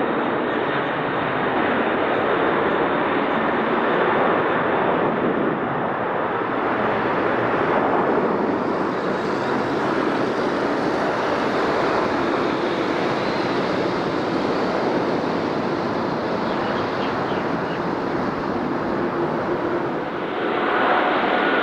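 Boeing 767-300 jet engines at takeoff thrust, a loud, steady rushing noise. Near the end it gives way to another jet with a steady whine.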